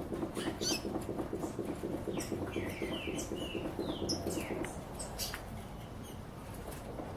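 Songbirds singing: repeated short chirps that slide downward in quick series, with brief high squeaky notes between them. Underneath, a low, fast pulsing sound fades out about two-thirds of the way in.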